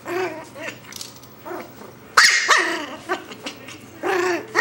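Morkie puppy yapping and barking in a run of short, high calls, about five of them, the loudest a little over two seconds in.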